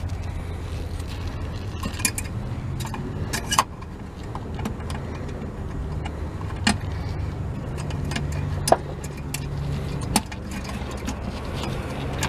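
Scattered sharp clicks and clinks of an H1 halogen headlight bulb and its metal retaining clip being fitted into the headlight housing, about five distinct ones spread through, over a steady low hum.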